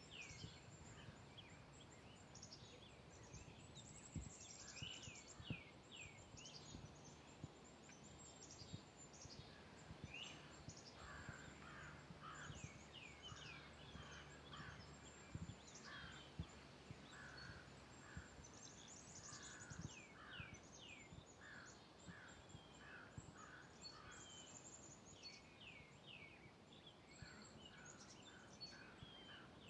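Woodland birds chirping and singing: many short, high, falling chirps and quick runs of repeated notes, all faint, with soft footsteps on a forest trail underneath.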